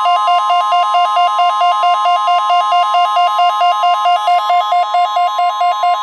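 NOAA Weather Radio warning alarm: a steady high tone with a rapidly pulsing electronic alert beep over it, at about five pulses a second. It marks the weekly test of the weather radio alert system.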